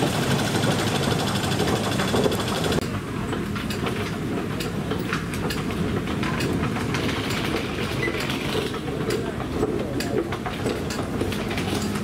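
Underground railway station ambience: a steady mechanical hiss and hum that drops away sharply about three seconds in, then many light, irregular clicks of footsteps and luggage wheels on a hard tiled floor.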